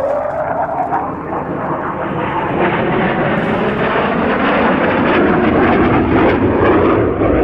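Saab J35 Draken jet fighter in flight, its turbojet sounding as a whine rising in pitch over the first second, then a broad rush of jet noise that grows steadily louder as the aircraft passes.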